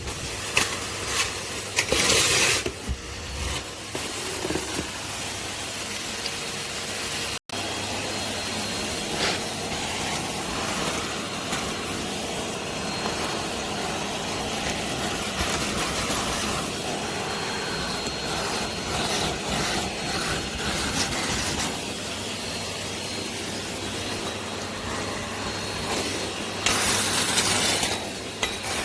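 Henry cylinder vacuum cleaner running steadily, a constant motor hum under a rushing hiss as it sucks up dust. The rushing swells louder about two seconds in and again near the end.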